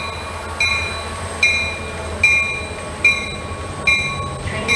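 Diesel locomotive of an MBTA commuter train approaching, its bell ringing at an even pace of a little more than once a second over the low rumble of the train.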